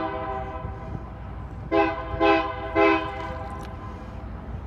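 Union Pacific diesel locomotive's multi-chime air horn: the tail of one blast, then three short blasts about half a second apart, over a steady low rumble.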